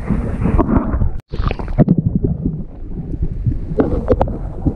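Camera held underwater in a shallow stream: muffled rumbling and gurgling of flowing water, with scattered knocks and clicks from handling the camera. A brief dropout comes a little over a second in.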